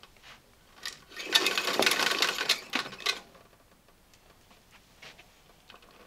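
Automatic cord rewind of a vintage Electrolux canister vacuum reeling in its power cord, a loud clattering rattle lasting about two seconds, with a few single clicks before and after.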